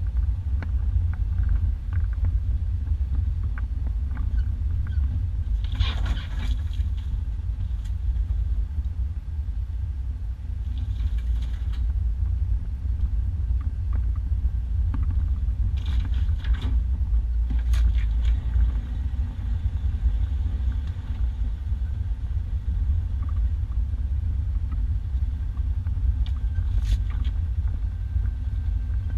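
1991 Isuzu Trooper driving along a rough dirt two-track, heard from inside the cab: a steady low engine and road rumble, with a few brief sharper noises from the body and trail scattered through it.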